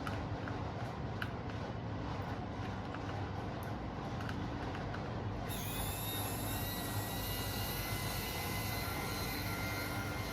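Small clicks and taps of tiny screws and tools over a steady low hum. About halfway through, the motor of an electric precision screwdriver starts with a sudden high whine and keeps running steadily.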